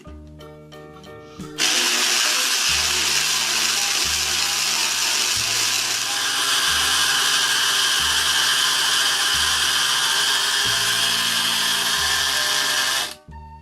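A blender running, starting abruptly near the start and cutting off shortly before the end, over background music with a steady bass line.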